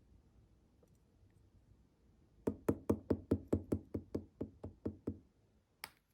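Slime being handled, giving a quick run of about a dozen clicking pops, about five a second, that fade over a couple of seconds, then one more sharp click near the end.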